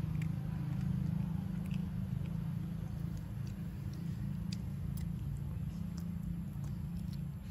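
A long-tailed macaque sucking and licking its fingers, with small scattered wet mouth clicks, over a steady low rumble.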